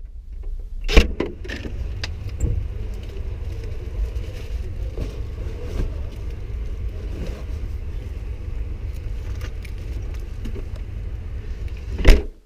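Steady low rumble of a car heard from inside its boot, with light rattles, a sharp knock about a second in and a loud thump near the end as the tailgate shuts.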